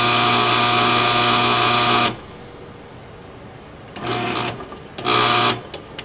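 LiftMaster garage door opener's motor running unloaded with a steady hum on the door-up command, stopping abruptly about two seconds in. Near the end it starts twice more, each time for about half a second.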